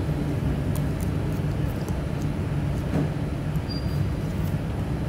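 Steady low rumble of a large dining hall's background noise, with a few faint light clicks of a metal spoon on a plate.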